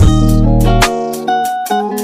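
Background music: guitar over bass, with drum hits.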